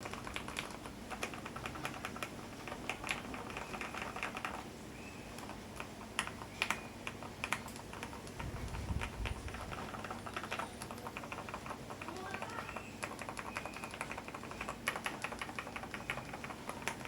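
Keydous NJ80 custom mechanical keyboard being typed on continuously: a rapid, steady stream of keystroke clacks.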